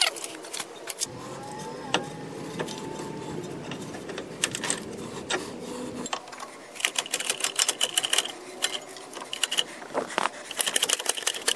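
Hand ratchet clicking in quick runs as bolts are run in on a truck's front wheel hub and knuckle, with scattered metal tool clinks. A low steady rumble underlies the first half and cuts off abruptly about halfway.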